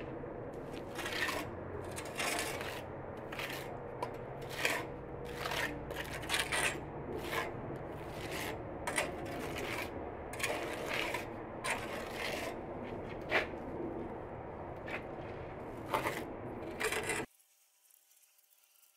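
Hand trowel scraping and spreading cement mortar over wire mesh on a brick oven dome, in repeated strokes about once a second. The sound cuts off abruptly near the end.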